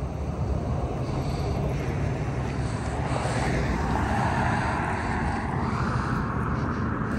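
A car driving past on the road, its engine and tyre noise swelling about halfway through and fading again, over a steady low rumble of traffic.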